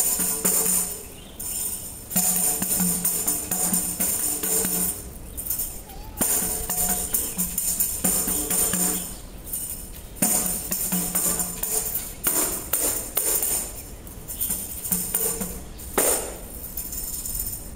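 Tambourine jingles rattling in shaken and struck phrases of about three to four seconds, with short breaks between them, over backing music.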